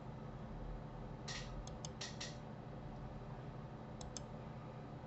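Faint clicks of a computer mouse and keyboard: a quick run of about five clicks between one and two and a half seconds in, then two more about four seconds in, over a low steady hum.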